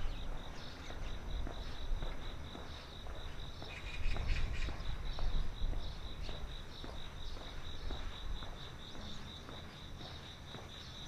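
An insect chirping in a steady, high, pulsed trill, about five or six pulses a second, with the walker's footsteps faintly underneath.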